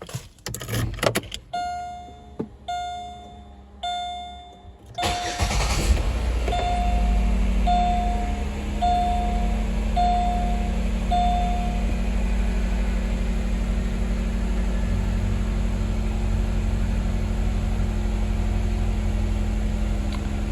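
A few clicks, then the car's warning chime dinging about once a second. About five seconds in, the 2007 Chevy Malibu Maxx's 3.5-litre V6 cranks and starts, then settles into a steady idle while the chime dings several more times and stops. This is the first start after the oil pressure sensor was replaced.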